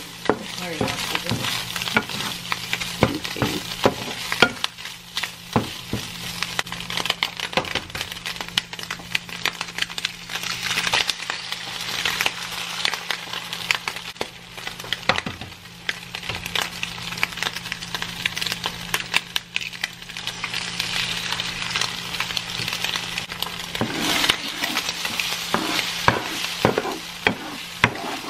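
Diced Spam and eggs frying in oil in a nonstick skillet, a steady sizzle, with a wooden spoon stirring and knocking against the pan in frequent short clicks.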